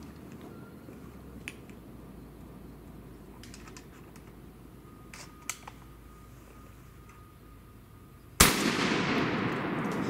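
A single shotgun blast about eight seconds in: a sudden loud crack that echoes and dies away over a second or two. Before it come a few faint sharp clicks over a low steady background.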